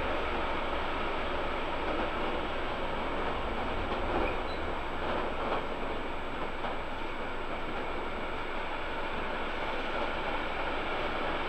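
Freight train of tank wagons and covered wagons rolling past, its wheels making a steady rumble on the track.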